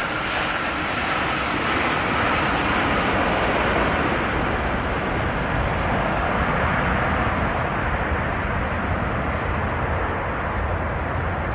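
Jet airliner engines: a high engine whine falling in pitch over the first couple of seconds, over a steady broad roar that grows heavier and deeper in the second half.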